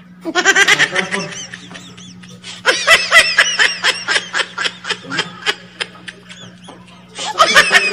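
High-pitched laughing and giggling in three bouts of quick, squealing laughs, the middle one the longest and loudest, over a steady low hum.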